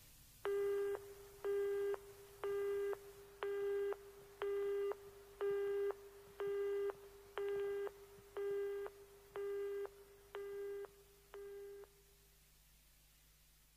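Telephone busy tone: twelve low beeps, about one a second with equal gaps, fading out toward the end. It follows a 'number not in service' announcement, so it signals a dead line.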